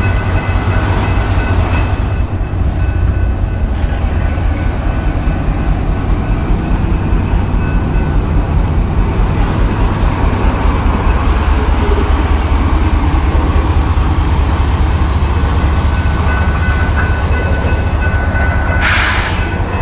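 Freight train passing close by: the steady rumble of diesel locomotives and wheels running on the rails, loud and unbroken.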